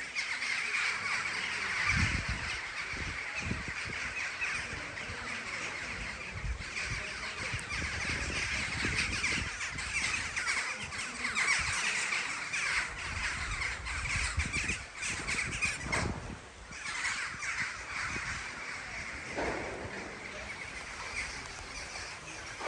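A flock of birds calling all at once: a dense, continuous chatter of short, overlapping calls that eases briefly about three-quarters of the way through. A few low thumps sound under it, the strongest about two seconds in.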